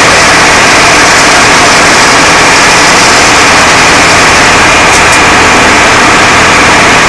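Ural 4320 fire engine's diesel running steadily under load to drive the fire pump, with the steady hiss of the roof monitor's water jet.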